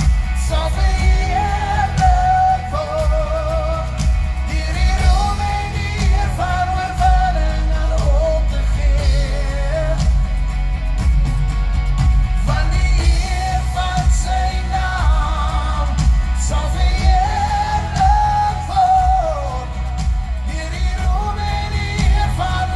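Live singing over amplified band music: a vibrato-laden sung melody over a strong bass line and steady drum beat.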